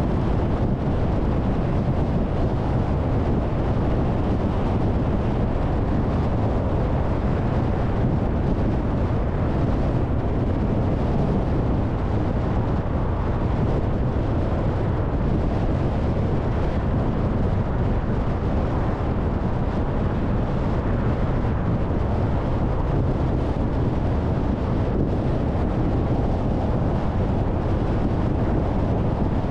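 Steady road noise of a car driving: an even low rumble of tyres and engine, with some wind noise.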